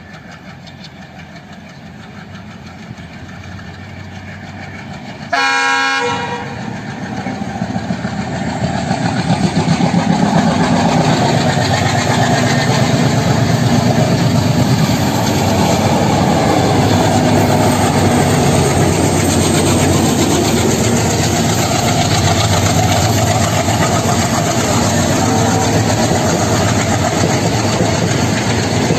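Twin ALCO diesel locomotives approach with their engines working hard, growing louder, and sound one short horn blast about five seconds in. Then the locomotives and train pass close by, loud and steady, with engine noise and the rhythmic clatter of wheels over rail joints.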